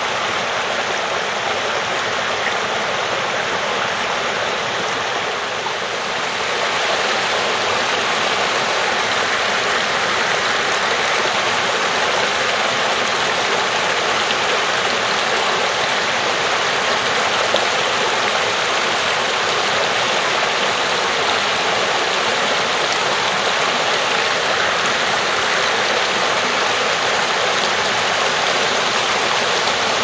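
Small woodland stream swollen with snowmelt, rushing over rocks and a low cascade: a steady, continuous rush of water that grows a little louder about six seconds in.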